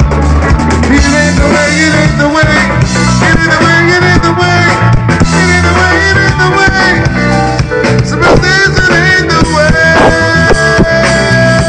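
Live band playing a loud funk groove on drum kit and bass, with melodic lines bending over it and a long held note near the end.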